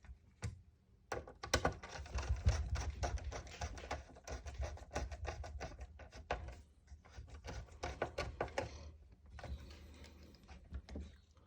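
Rapid, irregular clicking and light knocking of tools and small parts being handled while a PlayStation 3 is put back together.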